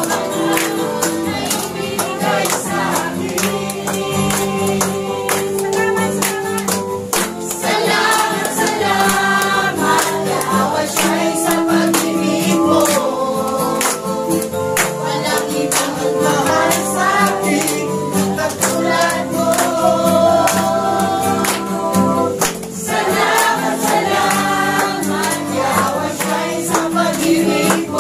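A congregation singing a Tagalog worship song together over instrumental accompaniment with a steady beat, hands clapping along.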